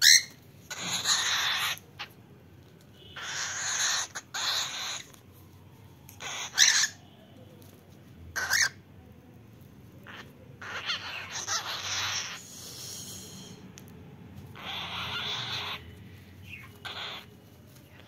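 Cockatiel hissing in about five bursts of roughly a second each, with a couple of short harsh calls between them: the bird is angry and defending itself against being held.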